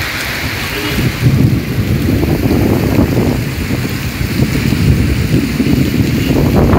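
Heavy rain hissing, with wind buffeting the microphone in irregular low gusts from about a second in.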